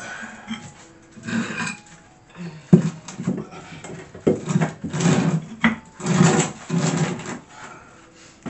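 Thick old cement floor tiles being handled: clacking together as a stack is lifted and restacked, and scraping as tiles are slid and set down on the subfloor. A sharp knock about three seconds in is the loudest.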